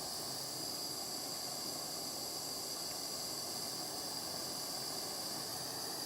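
Soldering torch flame hissing steadily as it gently warms a silver ring from a distance, driving off moisture so the solder does not ping.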